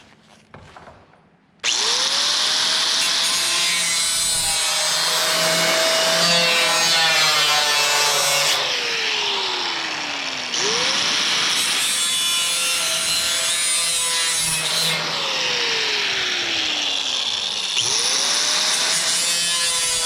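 Electric power tool cutting a ribbed metal sheet along a marked line. Its motor whines up about a second and a half in and runs with a loud cutting noise, then winds down about eight and a half seconds in. It is started again twice, winding down and speeding up once more near the end.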